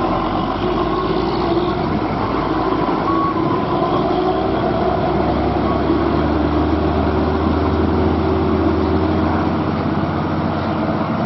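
Diesel truck engines working through a steep hairpin bend: a large tanker truck pulling round the turn, then an Isuzu Elf light truck running close by. Its low engine hum is strongest from about halfway until near the end.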